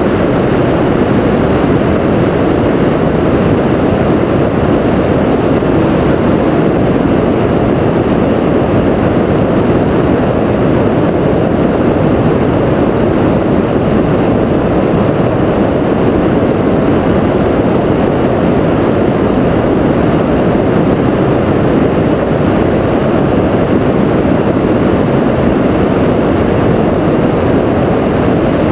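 Cessna 172R's four-cylinder Lycoming engine and propeller running steadily in flight, a loud, unchanging drone mixed with rushing air.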